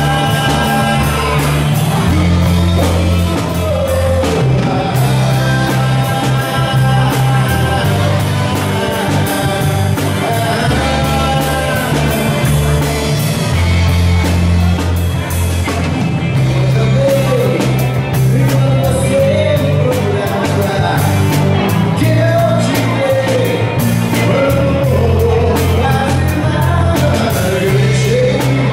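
Live rock band playing a song: a male lead singer over electric bass, guitar and a drum kit, with the bass notes changing every second or two under a steady drum beat.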